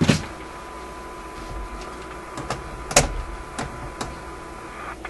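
A handful of sharp clicks and knocks, the loudest about three seconds in, from the controls of a vintage tube radio being handled as its band switch is changed over to the next shortwave band. A faint steady tone and a low hum run underneath.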